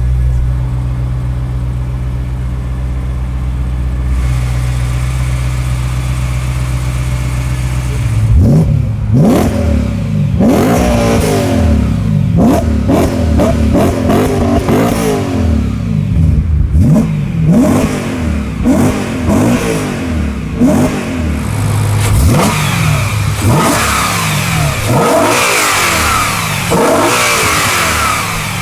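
BMW M3 E92 GTS's 4.4-litre V8 through an Akrapovič exhaust, idling steadily for about eight seconds, then revved again and again, the pitch climbing and dropping back with each blip of the throttle.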